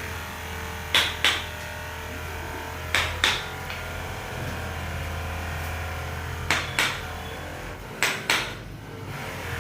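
Four pairs of sharp impacts, the two in each pair about a third of a second apart, over a steady low hum.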